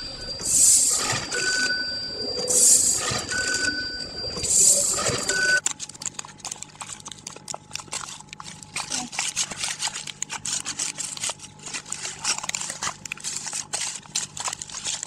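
ZV 320A vertical packaging machine cycling about every two seconds, each cycle a hiss followed by a short high tone. About five and a half seconds in it cuts to the crackle and crinkle of a filled plastic pet-food pouch being handled, over a steady low machine hum.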